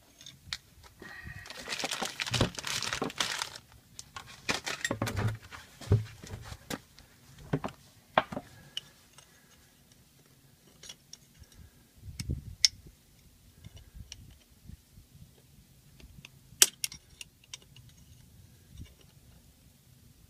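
Small metal clicks and clinks of hands and a tool working at the snap ring on a John Deere 6400's rear PTO shaft, mixed with rustling handling noise. The rustling is densest about two seconds in, and one sharp click comes about three-quarters of the way through.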